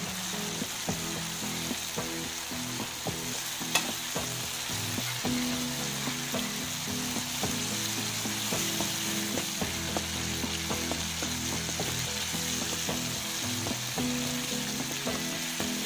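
Chopped tomatoes sizzling in hot oil in a metal frying pan while a spatula stirs them, scraping and tapping against the pan, with one sharper knock about four seconds in.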